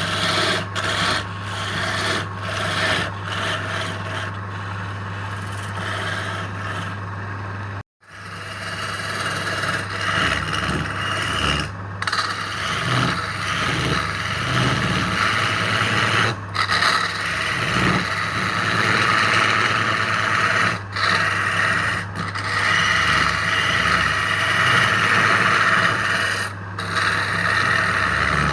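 Wood lathe running with its motor humming steadily while the spinning workpiece is worked, a rasping scrape that swells and fades. The sound drops out briefly about eight seconds in.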